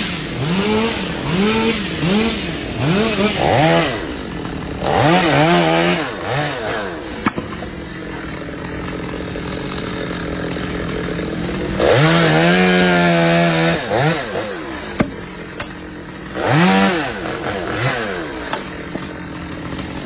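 Chainsaw engine revved up and down over and over: about six quick blips in the first few seconds, then longer high bursts, one held for a couple of seconds past the middle and another near the end, running at idle in between.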